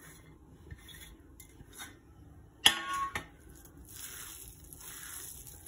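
Steel kitchenware: a steel plate scraped against the rim of a steel bowl with light clinks, then one loud ringing clank about two and a half seconds in. A soft steady noise follows as a hand mixes grated beetroot into the mashed potato and quinoa.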